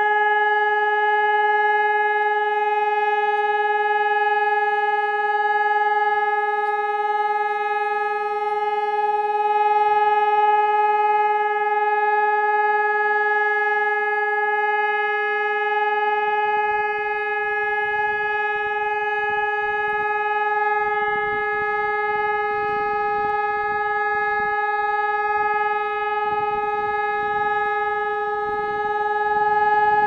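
Hörmann ECN 600 electronic civil-defence siren sounding one steady, unchanging tone with strong overtones: the continuous 140-second siren test signal. A faint low rumble runs underneath from about halfway.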